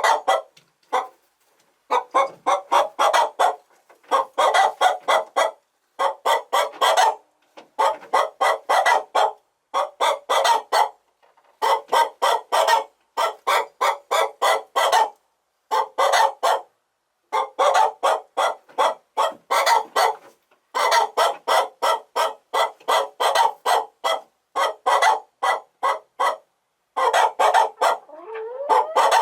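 Chickens clucking in runs of quick, short clucks, about five or six a second. Each run lasts a second or two, followed by a brief silent gap, and the pattern repeats throughout; a rising call comes near the end.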